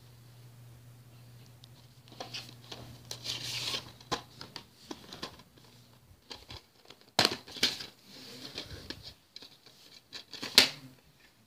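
Plastic DVD case being handled and opened: scraping and rustling with scattered clicks. There is a sharp plastic snap about seven seconds in and a louder one near the end.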